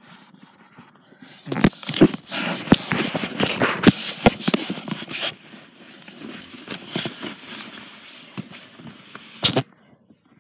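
Handling noise as the microphone is rubbed and paperback books are shifted about: scraping and rustling with a run of sharp knocks in the first half, then a softer steady rustle and one last sharp knock near the end.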